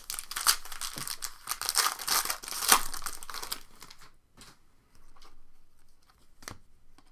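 Foil trading-card pack wrapper crinkling and tearing as it is opened, for about three and a half seconds. A few light clicks follow as the cards are handled.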